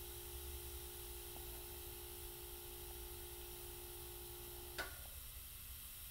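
Faint steady hum with a soft hiss of air from an airbrush setup. The hum stops with a single sharp click a little before the end.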